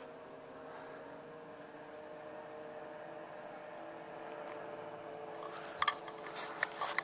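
Faint steady hum, then a quick run of sharp crackling clicks near the end as the handheld camcorder is moved.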